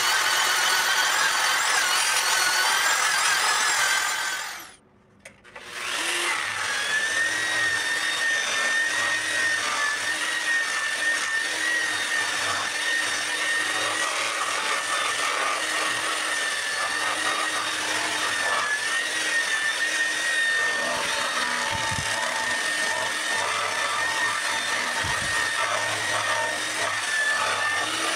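Angle grinder running steadily with a high whine while it sands cedar root wood. The sound cuts out for about a second near the five-second mark, then the grinder runs again with a sanding pad working the inside of the bowl.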